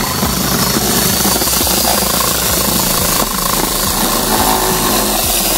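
Electric jigsaw running steadily, cutting a circular speaker hole in a subwoofer box panel.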